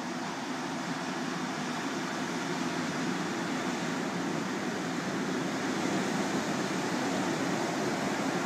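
Heavy ocean surf breaking and washing up the beach: a steady rushing that swells slightly around the middle.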